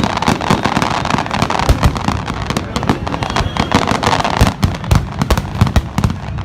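Fireworks display: a dense barrage of sharp bangs and crackle, many reports a second, with the crackling haze thinning after about four and a half seconds.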